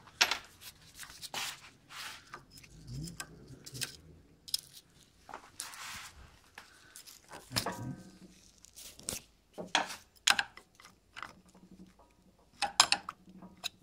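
Scattered clicks, clinks and short scrapes of small metal parts of a NuVinci CVT bicycle hub being handled and set down on a workbench. Near the end a screwdriver pries inside the hub among its steel balls, with a few sharper clicks.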